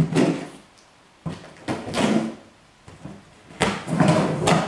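Clear packing tape being slit and torn off a cardboard shipping box, in three long tearing strokes about a second and a half apart.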